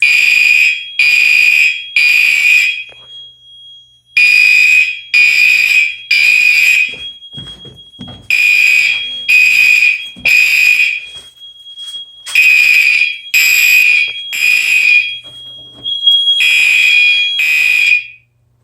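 Gentex Commander fire alarm horns sounding in the temporal-three evacuation pattern: three blasts about a second apart, a pause, then three more, over and over. The system is in alarm because its smoke detector has been set off for a test. A steady high tone carries on through the pauses between the groups.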